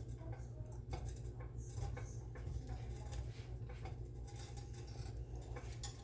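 Spoon stirring macaroni in a pot, with faint irregular clicks and scrapes against the pot over a steady low hum.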